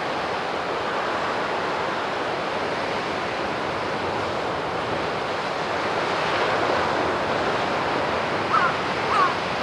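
Sea surf washing on the shore, a steady rushing that swells slightly past the middle, with wind on the microphone. Two short falling chirps sound near the end.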